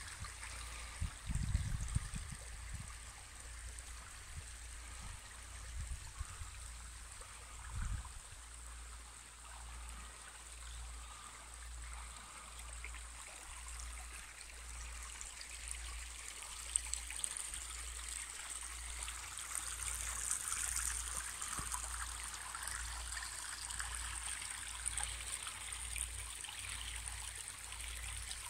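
Small shallow stream trickling and babbling over stones, a steady rush that grows louder in the second half. A few low thumps in the first seconds and one about eight seconds in.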